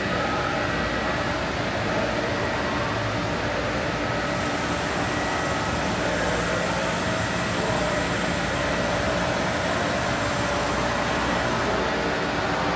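Steady hum and rush of industrial ventilation and pump machinery, with a few steady whining tones held over it.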